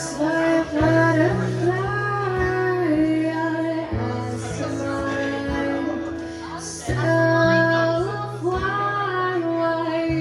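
Live band music: a melody of held notes that slide between pitches, over low sustained bass notes that shift every three seconds or so, with guitar underneath.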